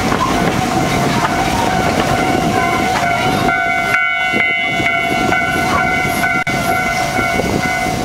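Miniature steam train rolling along its track, heard from an open passenger car, with a long steady whistle held over the running noise of the wheels. A second, higher set of whistle tones joins in for a few seconds in the middle, while the train crosses a road.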